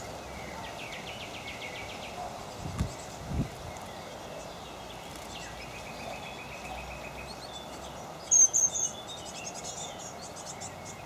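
Small songbirds calling over a steady background hiss: rapid trilled series of notes about a second in and again around six seconds, then a cluster of loud, high, sharp chirps about eight seconds in followed by fast twittering. Two short dull thumps come around three seconds in.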